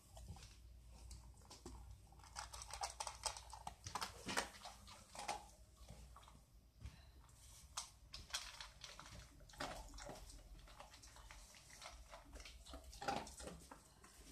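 Old English sheepdog eating dry kibble from a metal bowl: faint, irregular crunching and clicking of chewing, heaviest in bursts around the middle and near the end.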